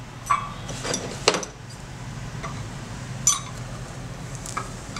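About five light metallic clinks and taps as a loose steel scissor blade and a screw clamp are handled and set against a wooden workbench, the loudest a little over a second in. A steady low hum runs underneath.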